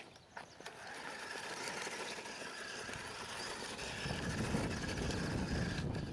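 Electric motor whine and drivetrain of a 1/16-scale Traxxas Summit RC truck driving on dirt, rising as the truck passes close. A low rumble joins about four seconds in.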